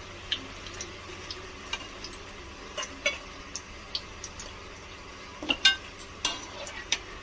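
A spoon clicking and scraping against a pan over a faint steady sizzle of hot oil, as fried onions and nuts are lifted out onto a plate.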